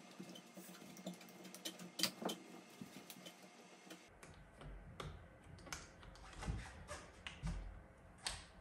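Faint, scattered clicks and taps of hands working a new rubber hood onto a SRAM Force 22 shifter and seating its tabs. A faint low rumble joins the background about four seconds in.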